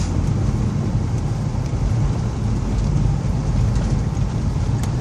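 Steady low rumble of a car driving on snowy roads, engine and tyre noise heard from inside the cabin.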